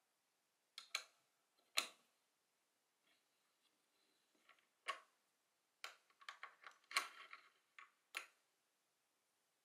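Steel hex key clicking and scraping in a socket-head screw on a metal motor-mount bracket as the screw is turned: scattered sharp clicks, with a quick run of them about six to seven and a half seconds in.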